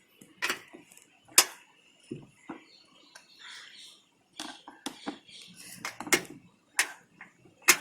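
Irregular metallic clicks and clinks of hand tools and small parts being worked, as a makeshift clamp is tightened onto a plastic air filter box. The sharpest clicks come about a second and a half in and near the end.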